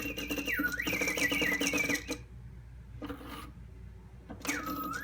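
Singing bird automaton of an antique Black Forest clock: a bellows-blown whistle warbling and trilling with falling glides over a rapid mechanical clatter from the works. It breaks off for about two seconds, then comes back near the end with a whistle that falls and rises again.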